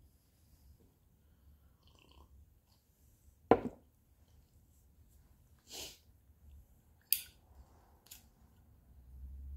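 Hands handling a tobacco pipe and a lighter. There is a single thump about three and a half seconds in, then a brief rasp, then a sharp click followed by a fainter click from the lighter.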